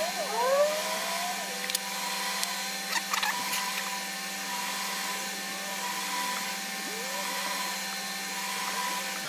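A steady machine whir with a constant low hum, and a few light clicks about two to three seconds in.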